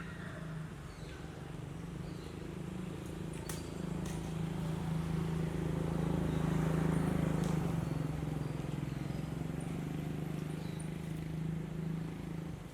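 Motor vehicle engine running steadily with a low hum, growing louder to a peak about halfway through and easing off again, with a few sharp clicks over it.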